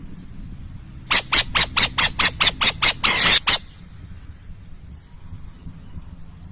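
Owl calling: a rapid series of about ten short, harsh, hissing screeches, some four or five a second, with one longer screech near the end of the run.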